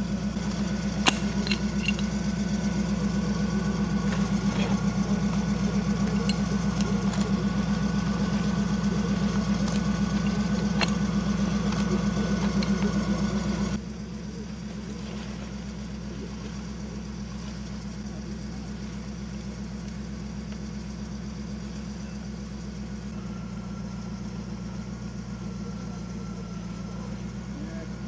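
Off-road 4x4 vehicle engine idling steadily, with a few sharp clicks about a second in. The level drops suddenly just before halfway, and the engine keeps running more quietly after that.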